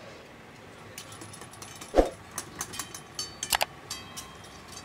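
Metal cooking utensils clinking and clanking against steel woks, a scatter of sharp ringing hits with one loud heavier knock about two seconds in, over the low steady noise of the kitchen.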